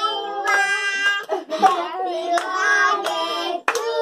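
Children singing together with held notes while clapping their hands in time, sharp claps about two a second.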